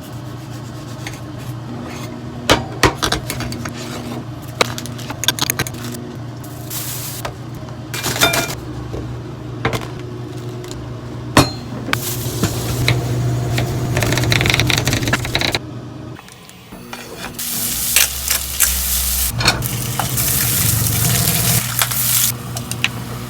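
Food sizzling on a hot surface, with repeated clinks and taps of utensils and dishes over a steady low hum. Louder stretches of sizzling come about halfway through and again in the last few seconds.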